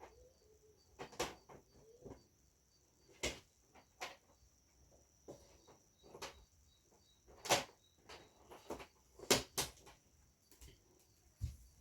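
Irregular light clicks and knocks, about seven or eight sharp ones spread over the stretch, from handling the parts of a flat-screen TV being opened for an LED backlight replacement, with a faint steady high whine underneath.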